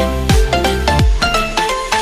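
Electronic background music with a steady beat and a plucked, bell-like melody.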